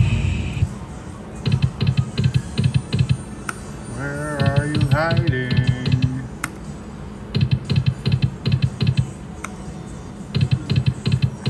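Thunder Cash video slot machine spinning its reels: repeated bursts of rapid clicking as the reels spin and stop, spin after spin. A short pitched jingle or voice passage comes about four seconds in.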